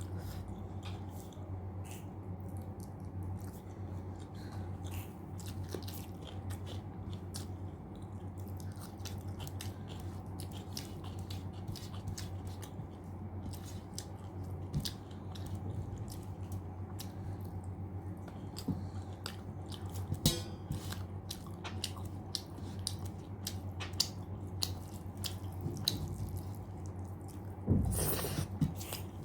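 Close-miked chewing and wet mouth clicks from someone eating mutton curry and rice, over a steady low hum. A louder, noisier burst comes near the end.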